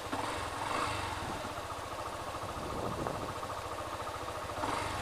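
Motorcycle engine running steadily at low revs, its firing pulses even.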